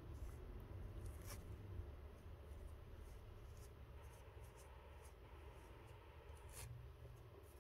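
Near silence: a steady low room hum with a few faint, scattered ticks.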